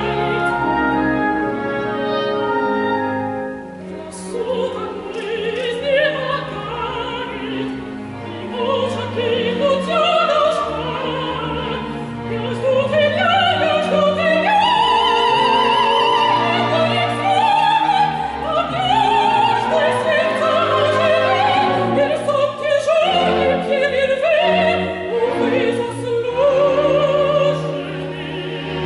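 Operatic soprano singing with strong vibrato over an orchestra, her line climbing to its highest and loudest phrases about halfway through.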